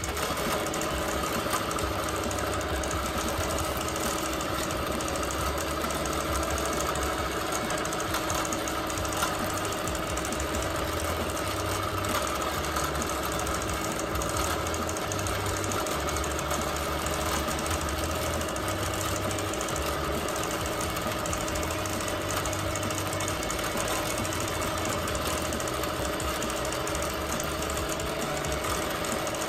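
Bernina Q24 longarm quilting machine running continuously as it stitches free-motion quilting, a steady, fast mechanical needle clatter with a constant hum.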